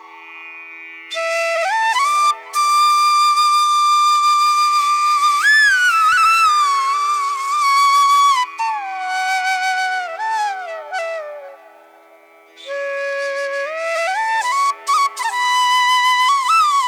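Background music: a slow Japanese-style flute melody of long held notes with sliding, bending pitch, over a steady low drone, pausing briefly near the start and again about two-thirds of the way through.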